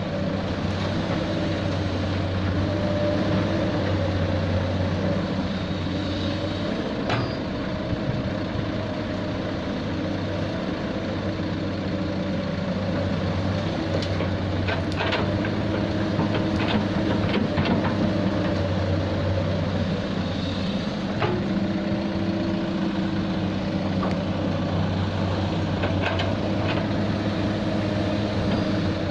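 Heavy diesel excavator engine working steadily, its pitch and load shifting a few times, with scattered short metallic clanks from the digging.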